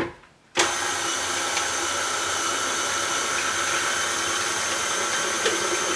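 KitchenAid Classic stand mixer switched on about half a second in, then running steadily at low speed with an even motor whine as its flat beater stirs eggs into creamed butter and sugar for a cake batter.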